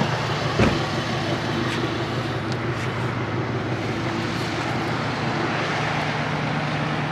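A vehicle engine idling with a steady hum under roadside traffic noise, and a single sharp thump about half a second in.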